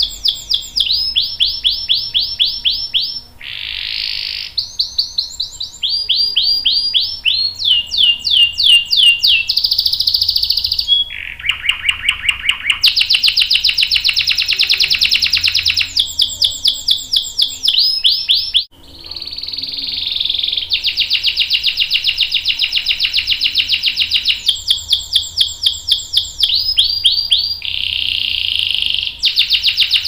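Domestic canary singing a long rolling song: runs of fast repeated notes and trills that change every second or two, with one brief break about two-thirds of the way through.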